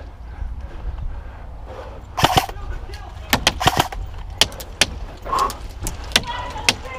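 Airsoft guns firing, sharp cracks coming singly and in quick bunches at irregular intervals.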